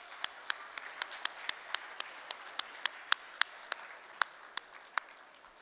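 Audience applause with one person's hand claps loud and close in front, about four claps a second, slowing slightly; the applause fades away near the end.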